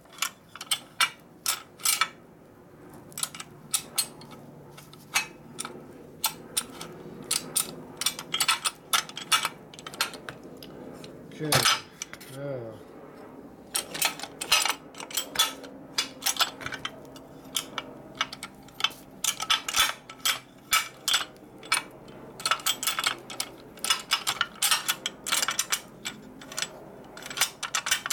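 Steel shift forks and rail in an aluminium T5 transmission top cover clicking and clinking as they are worked into place by hand, many sharp, irregular clicks throughout.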